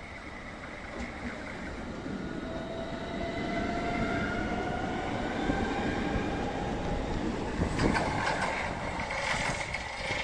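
Hamburg S-Bahn class 490 electric multiple unit running along the platform, growing louder as it comes close. The whine of its electric traction drive rises in pitch over the rumble of wheels on rail. Near the end there is a rapid series of clicks and knocks from the wheels.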